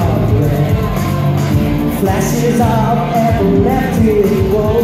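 Live rock band playing loudly: electric guitars and drums, with a wavering melody line over a steady beat.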